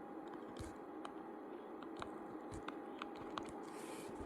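Quiet room tone with a faint steady hum, scattered light ticks and a brief scratchy rustle near the end.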